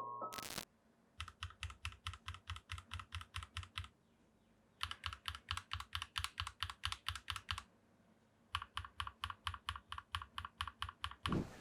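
Akko CS Rose Red linear mechanical key switches pressed rapidly and evenly, about six clacks a second, in three runs of two to three seconds with short pauses between.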